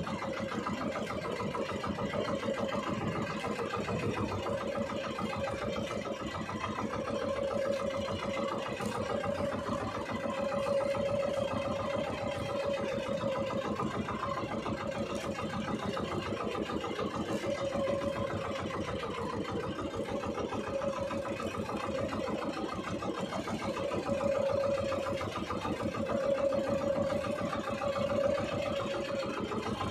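Small fishing boat's engine running steadily at low speed, with a steady hum that wavers slightly in strength.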